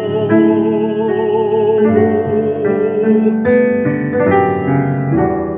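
Music: a long note sung with vibrato over piano accompaniment, ending about three and a half seconds in, after which the piano plays on alone.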